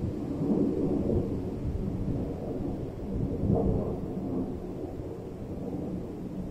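Wind rumbling on the microphone: a low, uneven rumble that swells and eases, strongest about half a second in and again past the middle.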